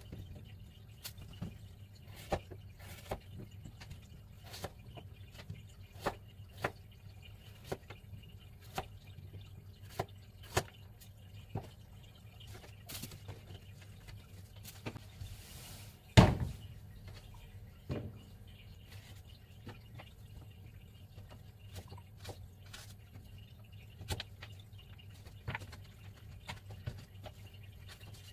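Kitchen knife cutting broccoli on a wooden cutting board: irregular sharp taps and clicks of the blade meeting the board, with one much louder thump about sixteen seconds in.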